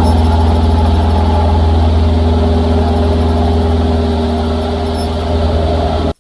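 Lancair 360's four-cylinder Lycoming piston engine and propeller running steadily in flight, with wind rush over the microphone of a camera mounted on the wing. The sound cuts off suddenly near the end.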